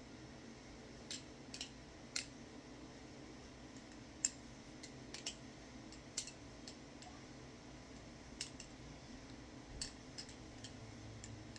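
Balisong trainer knife being flipped: sharp metallic clicks and clacks as the handles swing on their pivots and knock together, coming irregularly, with one louder clack about four seconds in. A steady low hum lies beneath.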